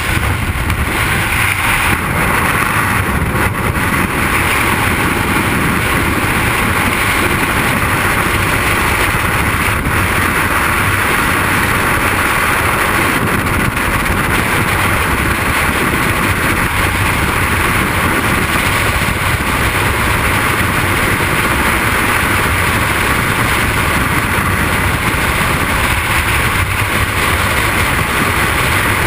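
Freefall wind rushing over the microphone of a camera worn by a skydiver: a loud, steady roar of air noise.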